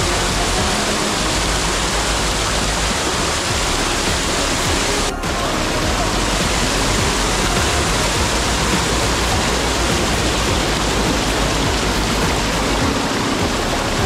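Mountain stream water pouring over granite boulders in a small cascade close by, a steady full rush with a brief break about five seconds in.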